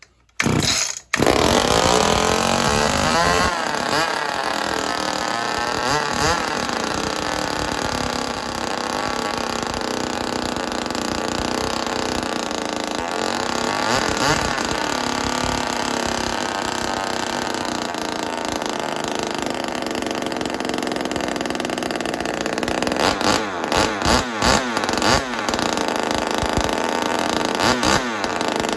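Ported Homelite XL-76 two-stroke chainsaw with an open stack muffler, firing on its first start after assembly. It catches about half a second in, stumbles for a moment, then keeps running and is revved up and down, with a run of quick throttle blips near the end. This is its first run-in to seat the rings on a used piston and cylinder.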